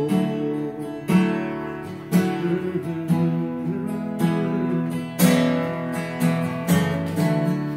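Acoustic guitar strummed in an unhurried rhythm, a chord about once a second ringing on between strokes, with no voice over it.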